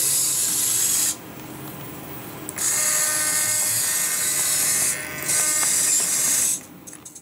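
Small electric servo motors whining as they drive the gear rings of a scale F-35B model's three-bearing swivel nozzle and rotate it. The motors run in three stretches: about a second, then after a pause a longer run, and a last run that stops shortly before the end.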